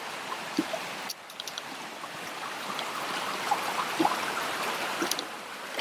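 Stream water flowing steadily with an even rushing sound, with a few faint clicks over it.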